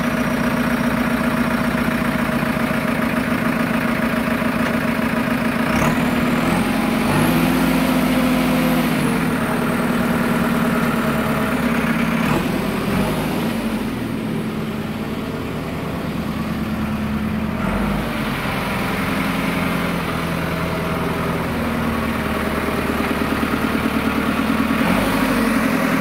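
2006 JCB 3CX backhoe loader's diesel engine running steadily. Its note rises and falls a few times as the backhoe arm and bucket are worked hydraulically, and a faint high whine comes and goes alongside.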